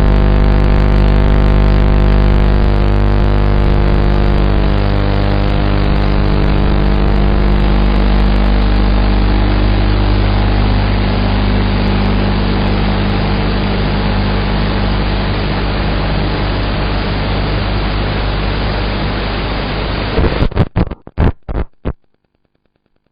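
A 7-inch FPV quadcopter's motors and propellers humming steadily in flight, heard as a dense buzzing drone with slowly shifting pitch. Near the end the sound breaks up into a few choppy bursts, then cuts out.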